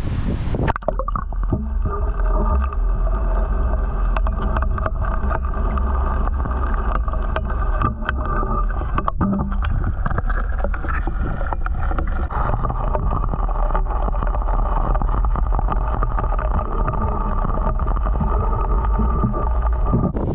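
A steady motor hum with a deep rumble underneath and a few scattered clicks.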